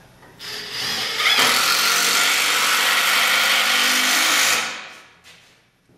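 Power drill with a Phillips bit driving a screw down through a log armrest into the leg tenon. The motor spins up over the first second, runs steadily for about three seconds, then winds down and stops.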